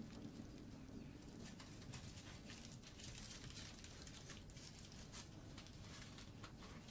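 Near silence: faint room tone with scattered small ticks.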